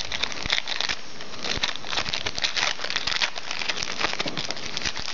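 Trading-card pack wrapper crinkling as it is opened, a continuous run of fine crackles.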